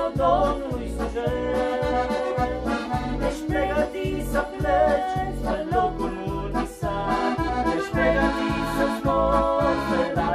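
Piano accordion playing a melody while a woman and a man sing in Romanian, over an electronic keyboard accompaniment with a steady bass beat.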